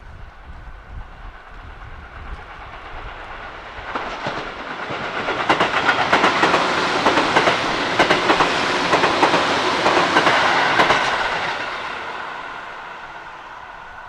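Tobu Railway electric train passing close by: its running noise swells, the wheels clack over rail joints in a string of sharp clicks for several seconds, then the sound fades as it moves away.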